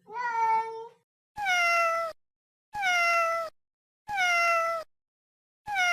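Domestic cat meowing five times. The last four meows are identical, each falling in pitch, and evenly spaced about a second and a half apart.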